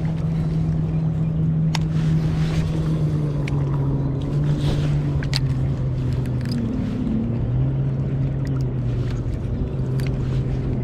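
A bass boat's outboard motor running steadily, with a constant hum that steps down a little in pitch about halfway through, over a wash of wind and water noise and a few light clicks and knocks.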